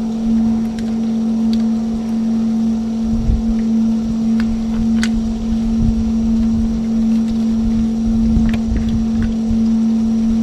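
A small engine on the fishing boat running at a steady, even hum. A few light clicks and rustles come over it as a fish is worked off the hook by hand.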